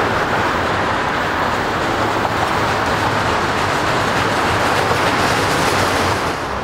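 Freight train of autorack cars rolling past on the rails: a steady, loud noise of wheels on track, dropping suddenly near the end.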